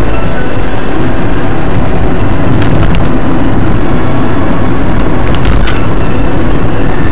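Steady road and engine noise of a moving car, loud and harsh through a dashcam's microphone, with a few short clicks about three and five and a half seconds in.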